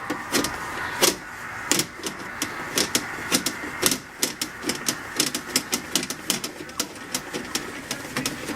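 Rapid irregular clicks and light metallic rattling from plumbing tools being handled during drain-clearing work, over a faint steady hum.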